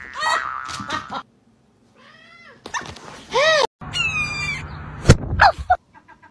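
A string of short animal cries, each rising and falling in pitch, with a brief quiet gap between them; high thin calls come about four seconds in, and a sharp click follows about a second later.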